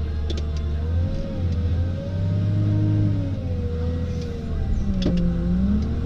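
Volvo L70F wheel loader's six-cylinder diesel engine running under load, heard from inside the cab, its speed rising about two seconds in as the loaded bucket is raised, with a wavering whine over it and a few sharp clicks.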